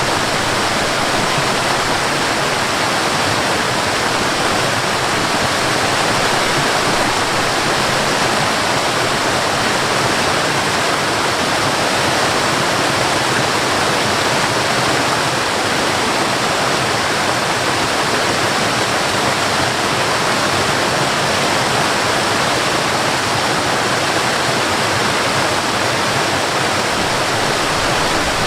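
Waterfall in a forest: a steady, unbroken rush of falling water.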